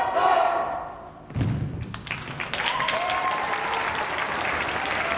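A drill commander's drawn-out shouted command ends in the first half second, then a single loud thump of the drill team moving in unison about a second and a half in, followed by the audience applauding.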